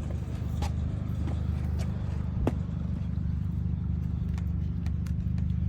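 Air compressor running steadily with a low, even hum, with a few light clicks over it.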